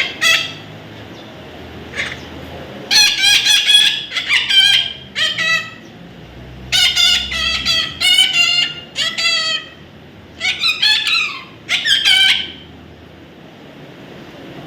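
A bird calling loudly in harsh, wavering bouts of several notes, about six bouts in all.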